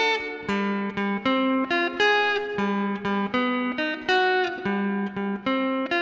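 Solid-body electric guitar playing an unaccompanied melody: a steady run of plucked notes, two or three a second, each ringing on into the next, over a lower note held underneath.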